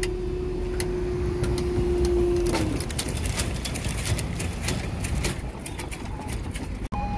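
Level crossing barrier mechanism running with a steady whine as the barriers rise. About two and a half seconds in it winds down with a short falling pitch and stops as the booms reach the top. A quick run of clicks and knocks follows over low road rumble.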